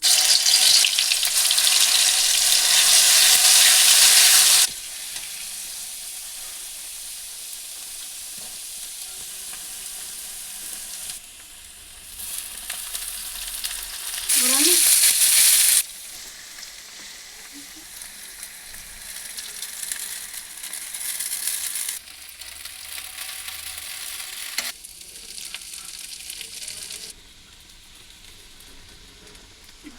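Food sizzling as it fries in hot oil in a pan: loud for the first few seconds and again briefly around the middle, quieter in between, the level changing abruptly.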